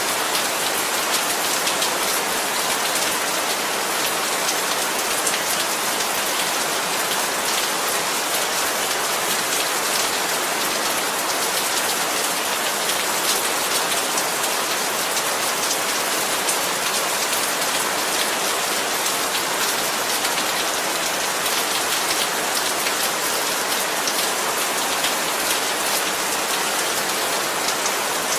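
Heavy rain falling steadily, a dense hiss of drops with many small individual patters.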